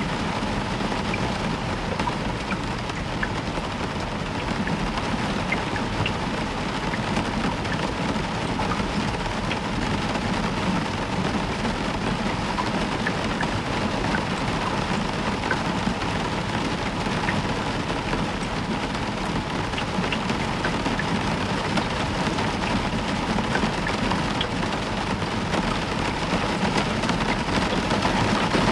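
Heavy rain falling steadily on a roof, with scattered individual drops ticking, over a low rumble of distant thunder.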